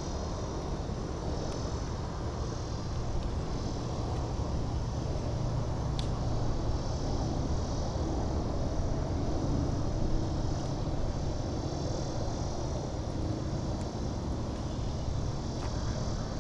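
Steady low rumble of wind on the microphone over open water, with a faint high pulsing buzz above it and a single light click about six seconds in.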